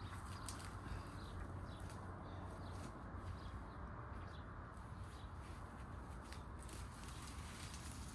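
Faint rustling with scattered light clicks and snaps as overgrown plant stalks are pulled and cleared by hand, over a low steady rumble.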